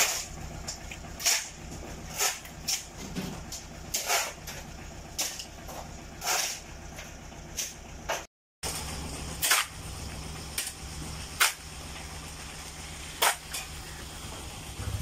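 Steady low hum with sharp clicks at irregular intervals, roughly one a second.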